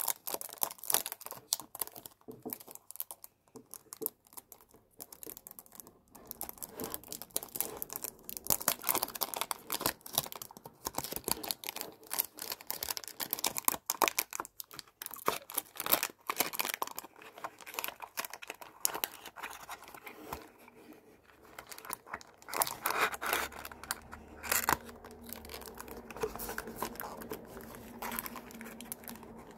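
Cellophane wrap on a perfume box crinkling and tearing as fingers peel it off, in dense, irregular crackles.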